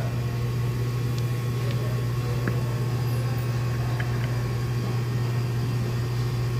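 Steady low mechanical hum of running machinery, unchanging throughout, with a few faint light clicks.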